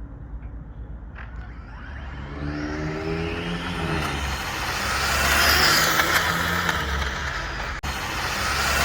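High-speed brushless electric RC cars racing down the lot, their motor whine climbing in pitch as they accelerate. The whine and tyre hiss then build to a loud rush over the last few seconds as they come through.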